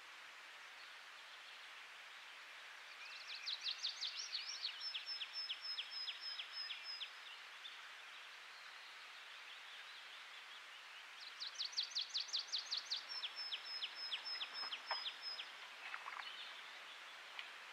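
A songbird singing two phrases several seconds apart, each a quick run of down-slurred notes ending in a high trill, over a faint steady hiss.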